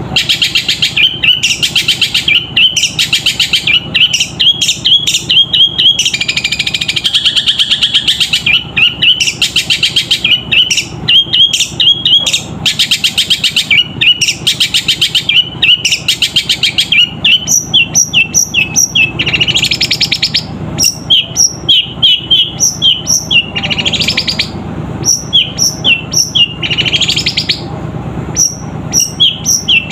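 Caged long-tailed shrike (cendet) singing loudly and without a break, a rapid string of sharp chirps copying the calls of fighting house sparrows. About halfway through the chirps break into separate notes in short runs with brief pauses, mixed with a few harsher rasping notes.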